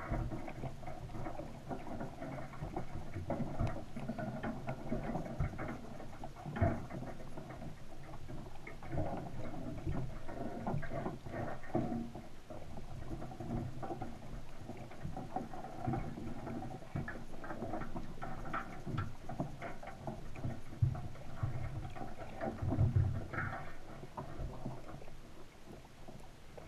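Underwater ambience picked up beside a crab trap on the seabed: a continuous irregular crackle of small clicks and patter, with a few louder knocks.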